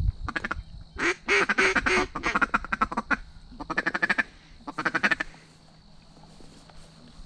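Duck quacking in rapid runs of quacks: four bursts over about five seconds, the longest about two seconds, then it stops.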